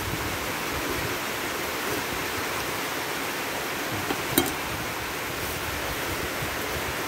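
Steady rushing hiss in the background, with a single sharp knock of the kitchen knife on the wooden chopping board a little after four seconds in.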